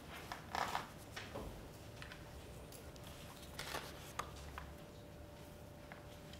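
Quiet room tone with a few soft rustles and clicks of paper pages being handled and turned, the loudest about half a second in and near the middle, over a faint steady hum.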